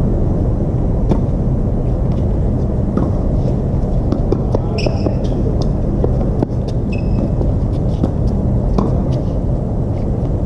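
Tennis rally: sharp pops of racket strings hitting the ball about every two seconds, over a loud, steady low rumble. Two short squeaks in the middle of the rally.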